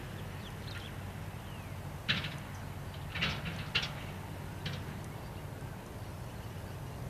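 Kobelco excavator's diesel engine running steadily at a low pitch. About four short, sharp higher-pitched sounds cut in over it, from about two to five seconds in.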